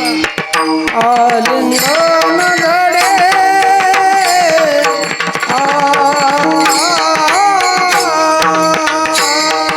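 A male voice singing a Varkari abhang melody in a gliding, drawn-out style, over sustained accompanying tones with steady tabla-style drumming.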